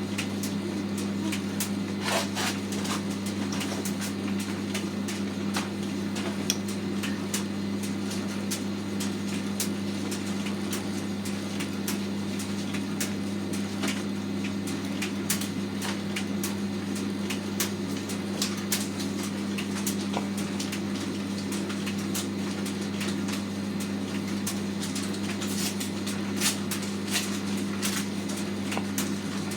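Hotpoint FETV60 tumble dryer running, its drum on a newly fitted bearing: a steady motor hum with scattered light clicks and knocks.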